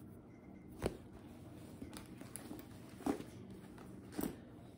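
Handling noise: three short knocks and rubs, spread over a few seconds, against quiet room tone.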